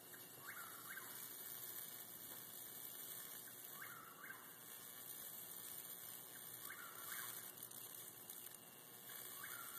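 Electric bug zapper's high-voltage grid arcing continuously through a trapped insect that is being fried: a steady sizzling hiss, with short rising-and-falling tones recurring every couple of seconds.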